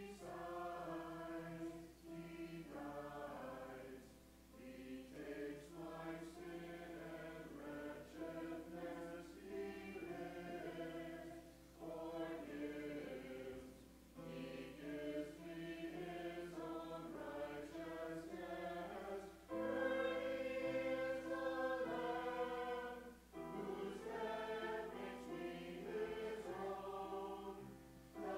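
Church choir singing a hymn in phrases a few seconds long, with brief breaks between them.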